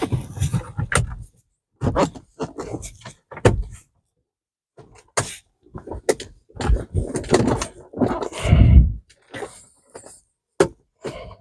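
Plastic dashboard trim panel of a 2011 Kia Sorento being pushed and knocked back into its clips: a run of knocks, clicks and rattling handling noise. There is a pause of about a second partway through, and the loudest knocks come near the end.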